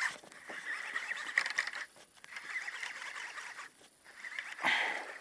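Baitcasting reel whirring as a hooked largemouth bass is cranked in toward the boat, in three quick spells with short pauses, starting suddenly and with a louder rush near the end.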